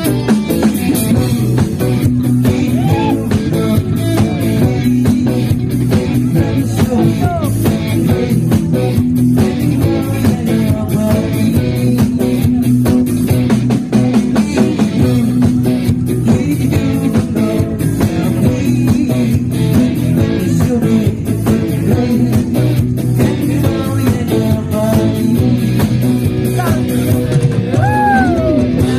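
Live rock band playing: electric guitars, electric bass and a drum kit, with a singer on a microphone.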